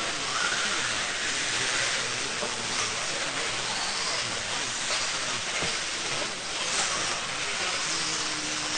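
Radio-controlled race cars running laps on an off-road track: a steady hiss of the cars' motors and tyres on the dirt.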